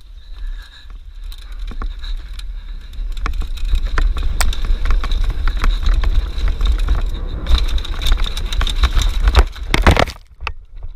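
Trek Session downhill mountain bike running down a dirt trail: tyres on dirt, with the chain and frame rattling and knocking over the bumps and a heavy rumble of wind on the mounted camera's microphone. The rattle builds about three seconds in, peaks in a loud burst near the end, then drops away.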